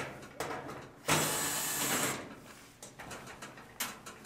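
Cordless drill-driver whirring for about a second as it drives a screw out of a clothes dryer's sheet-metal back panel. A few short clicks and rattles come before and after it.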